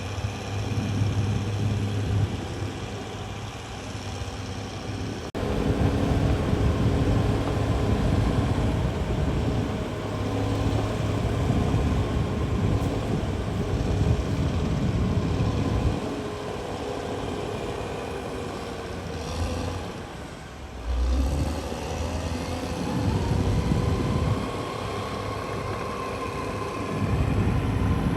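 CAT D6R bulldozer's diesel engine running as the machine works, its loudness rising and falling with the load. There is a sudden jump in level about five seconds in, and a rising whine near the end.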